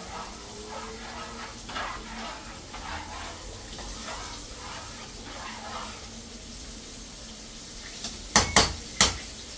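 Cooking at the stove: a steady frying sizzle with light scraping and stirring. Near the end come three sharp metallic clanks, a utensil knocking against the pan or pot.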